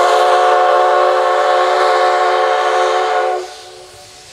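Steam whistle of the steam locomotive C56 160 sounding one long, loud blast that cuts off about three and a half seconds in, leaving a softer hiss of steam.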